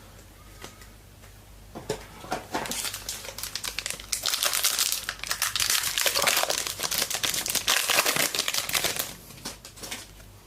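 A trading-card pack wrapper being torn open and crinkled by hand, starting about two seconds in, busiest in the middle and dying away near the end.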